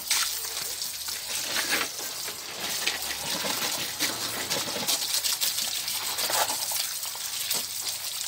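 Water running from a garden hose and splashing as a knife and then a dried caxi gourd are rinsed under it, with a steady spray and many small spattering clicks.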